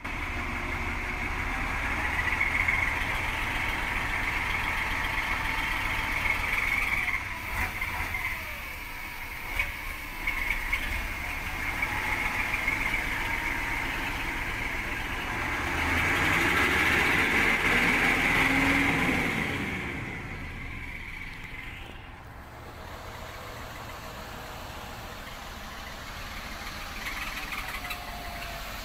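Nissan Diesel TZA520 logging truck's 17-litre RF8 V8 diesel engine running steadily, rising in revs and loudness about halfway through, then easing back down.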